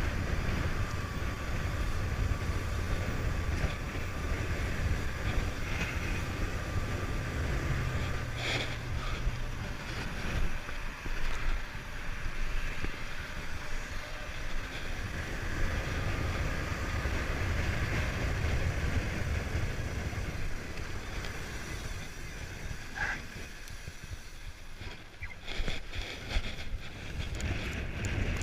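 Wind buffeting the microphone as a downhill mountain bike runs over the trail, a steady low rumble with a few sharp knocks, the loudest near the end.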